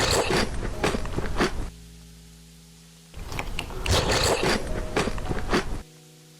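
Close-up crunchy chewing of chocolate ball cereal, in two spells of crackly crunching a little over a second apart, with soft background music in the gaps.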